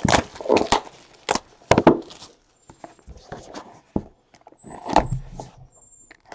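Plastic shrink wrap crinkling as it is pulled off a cardboard trading-card box, with scattered clicks and knocks from the box being handled and cut open.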